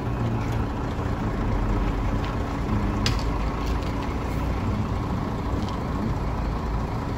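Bus diesel engine idling steadily, with a few faint clicks and knocks.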